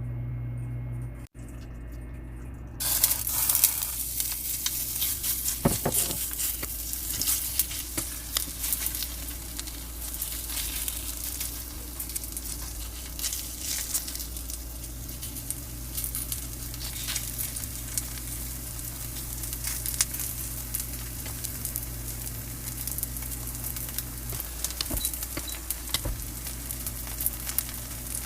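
Corn pancake batter frying in hot oil in a pan: a steady sizzle with scattered crackling pops, coming in about three seconds in.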